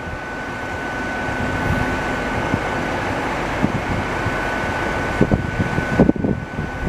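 A steady mechanical hum with a constant high whine, growing louder over the first two seconds, with a few irregular short sounds about five seconds in.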